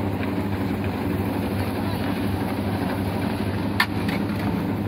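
Steady low mechanical hum of a fruit ice cream machine's motor-driven spinning metal drum, with a single sharp click about four seconds in.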